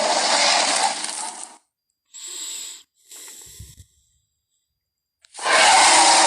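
Giganotosaurus creature sound effects: a loud roar fades out about a second and a half in, then two short breathy hisses, a pause, and another loud roar starting near the end.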